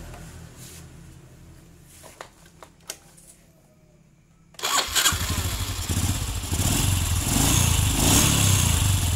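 Honda Absolute Revo 110 single-cylinder four-stroke engine at idle, dying away to almost nothing as the carburettor idle screw is backed out too far. A couple of light clicks follow. About halfway through the engine is started again and runs loudly and steadily.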